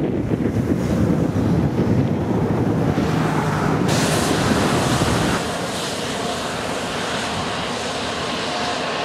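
Wind buffeting the microphone with a heavy low rumble. About four seconds in a hissing rush comes in, and soon after the rumble eases, leaving a steady rushing noise.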